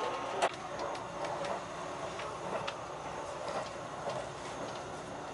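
Steady running noise inside the passenger cabin of a JR 651 series electric train moving at speed, with a few faint clicks from the rails, one a little sharper about half a second in.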